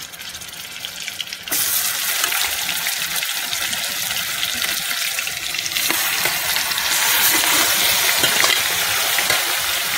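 Yogurt-and-lemon marinated chicken sizzling in hot butter and oil in a wok. The sizzle jumps louder about a second and a half in as the first pieces land, and grows again later as more chicken goes in.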